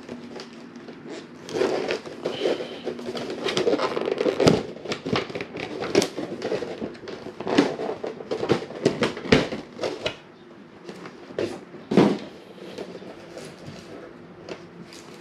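Clear plastic blister tray of an action figure's packaging being handled and pulled free, crinkling and clicking with several sharp snaps; the handling quiets over the last few seconds.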